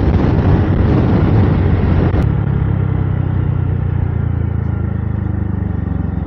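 A motor vehicle engine running steadily, mixed with rushing wind or road noise. The rushing drops away about two seconds in, leaving the engine's low, even hum.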